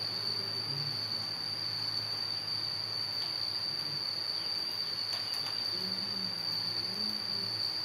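A steady, unbroken high-pitched whine, like an insect's trill, with faint voices in the background near the end.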